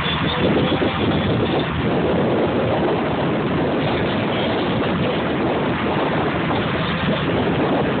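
Steady rushing of wind on the microphone mixed with open-ocean water noise around a small fishing boat.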